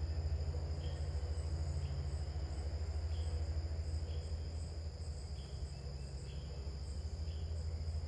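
Crickets trilling steadily, with a short note repeating about once a second. A steady low hum runs underneath and is the loudest part.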